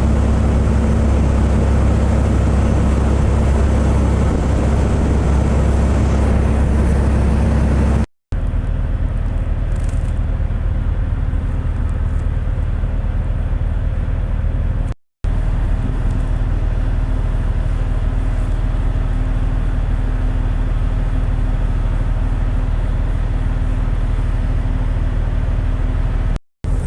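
Inland tanker ship's engine running with a steady, loud, low drone, broken three times by a moment of silence.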